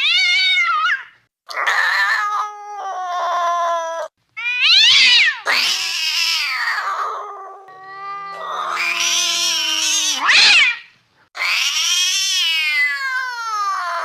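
A series of cat-like creature calls, meowing and yowling sound effects for a fictional hybrid dwarf cat: about six drawn-out calls with pitch that rises and falls, separated by short pauses, the longest near the end.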